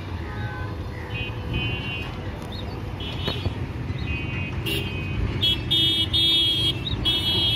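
Vehicle horns tooting over the low rumble of idling and moving engines. Short toots come every second or so at first, then longer, louder horn blasts near the end.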